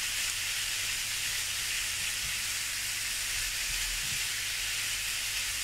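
Steady sizzling of surimi gulas, prawns, mushrooms and ham sautéing in olive oil in a frying pan.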